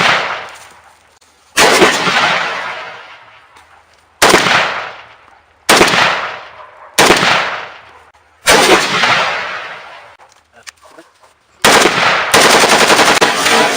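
AK-47 rifle (7.62 mm) fired in single shots: six sharp reports at uneven gaps of one to two and a half seconds, each echoing away over a second or more. Near the end a dense, continuous loud sound takes over.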